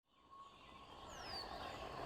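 Sci-fi alien-jungle ambience fading in from silence: a dense hissing bed of creature-like chirps with a faint steady tone, and a high call falling in pitch just over a second in.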